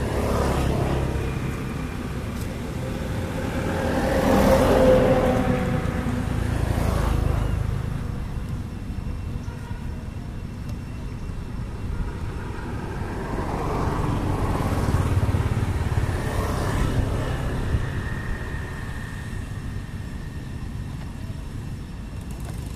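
Road traffic going past: a steady rumble with vehicles that swell and fade as they pass, loudest about four to five seconds in and again around fifteen seconds in.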